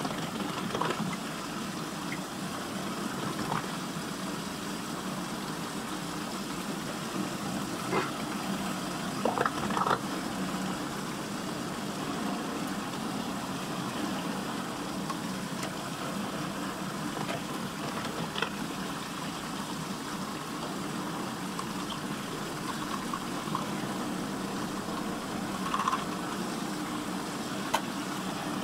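Steady rushing, churning water of a whirlpool vortex swirling down a drain hole, with a few short clicks about eight to ten seconds in and again near the end.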